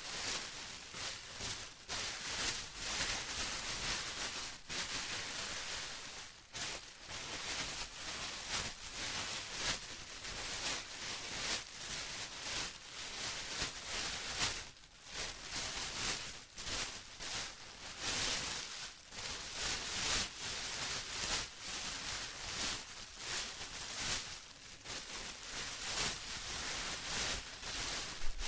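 Plastic being crinkled and rustled by hand, in a continuous irregular crackle with brief lulls.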